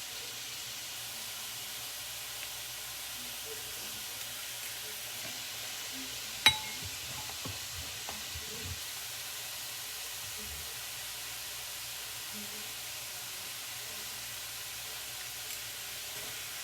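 Food sizzling steadily in a hot pan on the stove, with a few soft knocks and one sharp clack about six and a half seconds in.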